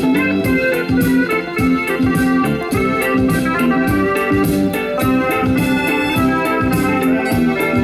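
Background music led by an organ-like keyboard, with a steady beat.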